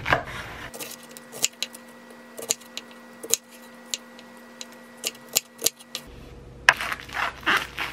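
Chef's knife slicing an onion on a wooden cutting board: a string of separate sharp knocks as the blade cuts through and meets the board, then a quick run of rougher strokes near the end.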